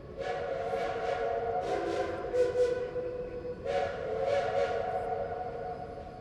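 Steam locomotive chime whistle blowing two long blasts, a chord of steady tones; the first blast changes to a lower note partway through, and the second starts about three and a half seconds in and fades out near the end.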